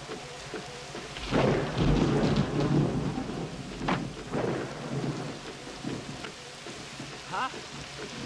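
Heavy rain falling steadily, with a loud rumble of thunder that swells about a second in and dies away over the next few seconds.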